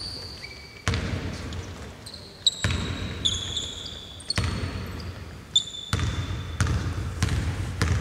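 Basketball bouncing on the court: a few slow bounces, then quicker ones in the last few seconds, with short high sneaker squeaks between them.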